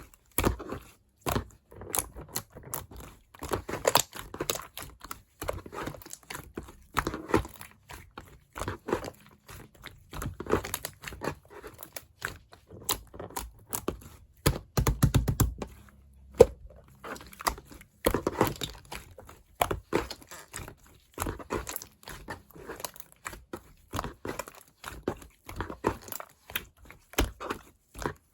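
Clay-mixed slime being scooped and squished by hand, giving irregular clusters of small crackling clicks and pops with short pauses between handfuls.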